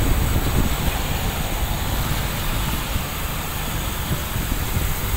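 Wind buffeting a camera microphone on a moving bicycle: a steady rushing noise with a deep, gusty low end, easing slightly about three seconds in.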